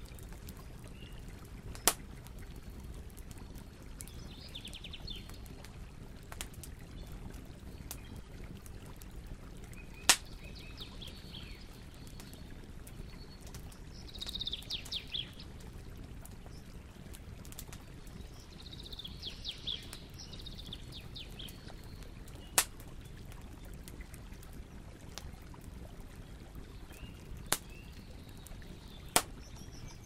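Large wood bonfire burning with a steady low rush and occasional loud sharp pops, five in all. Birds chirp a few times in between, most clearly in the middle.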